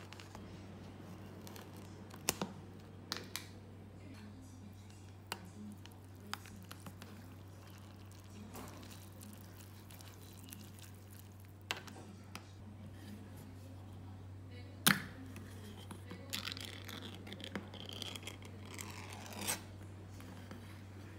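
Tabletop handling sounds over a steady low hum: scattered clicks and taps of chopsticks and a metal spoon on a paper instant-noodle cup. About 15 seconds in comes a sharp click, then a run of crinkling and tearing as the peel-off lid of a tin of braised quail eggs is pulled back.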